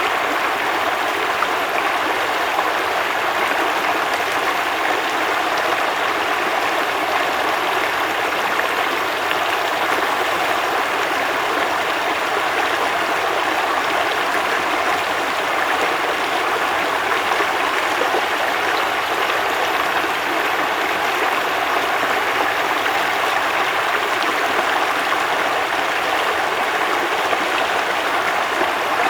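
A river flowing, with a steady, even rush of water that does not change.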